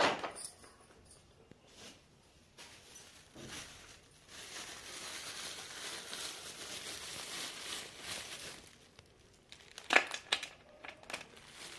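Clear plastic packets crinkling as offerings are handled and arranged on a plate, with a sharp click at the start and a sharp knock about ten seconds in.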